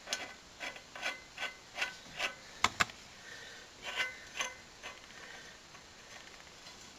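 Large nut being spun by hand onto the threaded end of a Gravely snowblower's impeller shaft: a run of light metallic clicks, two or three a second, then two sharper clicks about two and a half seconds in and two more about four seconds in.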